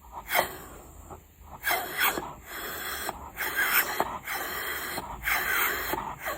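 A dog snorting and sniffing in a string of short, breathy bursts, about half a dozen over a few seconds.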